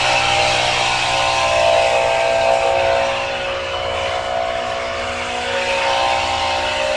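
Engine of the tree-removal machinery running steadily under load, a constant mix of several held tones over a noisy rumble. It eases slightly about halfway through.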